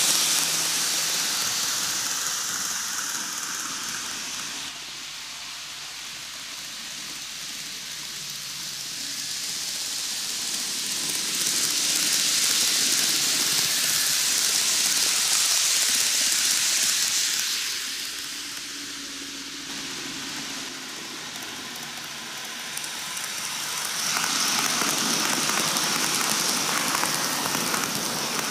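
N-gauge Keikyu 2100 series model train, twelve cars, running on TOMIX superelevated curved track: a steady rolling hiss of wheels on rail. It swells each time the train comes close past, loudest at the start, in the middle and near the end, and fades in between.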